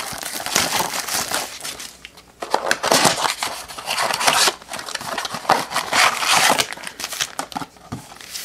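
Plastic wrapping crinkling and tearing as a shrink-wrapped retail blaster box of trading cards is opened, in irregular spells with a brief lull about two seconds in.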